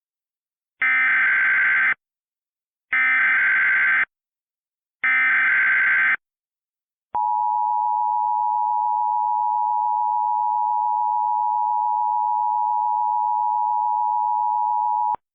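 Emergency Alert System header: three identical buzzy digital data bursts (the SAME header) about a second apart, then the steady two-tone EAS attention signal held for about eight seconds before it cuts off. This is the sequence that opens a broadcast emergency alert.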